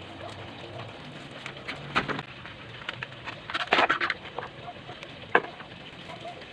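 Crackling and clicking handling noises as a live mud crab is bound with a plastic strap, with a loud cluster of crackles about four seconds in and a single sharp click a little after.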